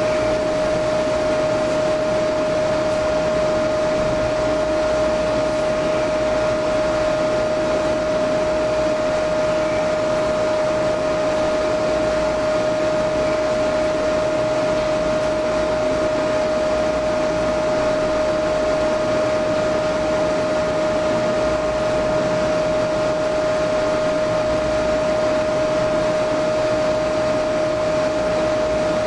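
Steady whirring noise with a constant mid-pitched whine: an electric fan motor running.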